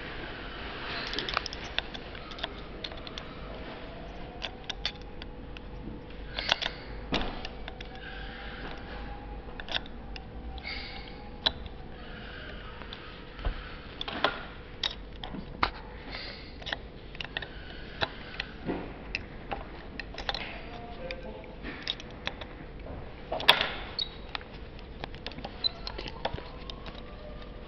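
Hex key clicking and scraping against a metal housing as small screws are turned by hand: scattered sharp metallic clicks, one much louder about two-thirds of the way through, over a faint steady hum.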